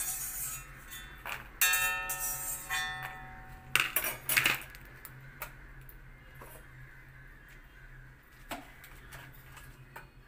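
A metal ladle clanking against an empty kadai (wok) several times. The loudest strike, about one and a half seconds in, rings for about a second, two more come around four seconds in, and one more comes near the end after a quieter stretch.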